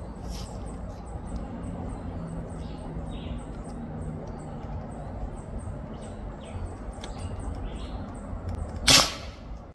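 An air rifle fires once about nine seconds in, a short sharp crack that is much louder than the rest. Before it there is only steady low background noise with faint, scattered high chirps.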